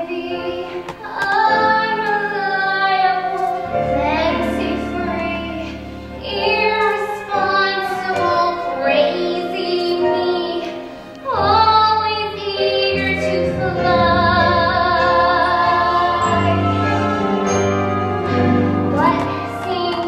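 A young female voice singing a melody with long held notes and vibrato, over instrumental accompaniment.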